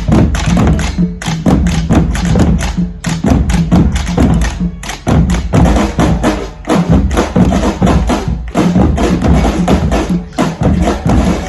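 A drumming ensemble playing together: a dense, fast stream of drum strikes with a sharp, wood-block-like clack among them and a couple of short breaks.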